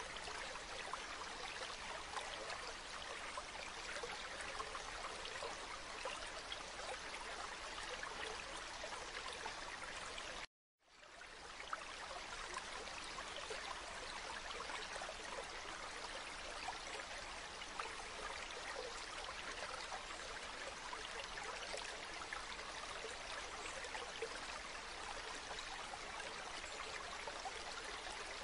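Shallow stream water running over small pebbles: a steady rushing with fine trickling. It cuts out to silence for a moment about ten seconds in, then swells back.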